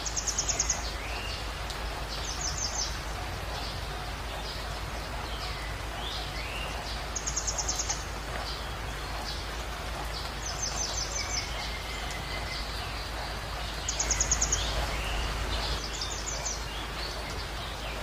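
Steady hiss of rain and running water, with a songbird singing a short, fast, high trill about six times and a few softer slurred notes between.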